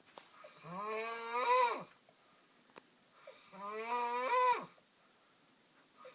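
A sleeping man snoring very loudly, two long snores about three seconds apart. Each is a pitched, drawn-out rasp that grows louder and bends down sharply in pitch as it ends.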